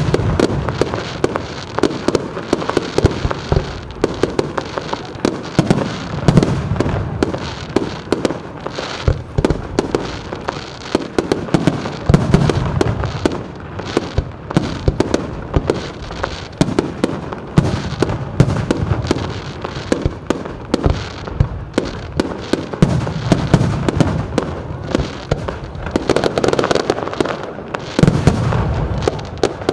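Fireworks display: aerial shells bursting in quick succession, deep booms mixed with many sharp cracks and pops, without a break.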